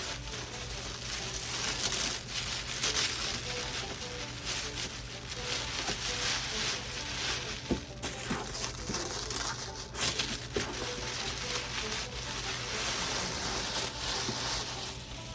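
Doll packaging being handled and opened: continuous crinkling and crackling of plastic and cardboard with scattered sharp clicks.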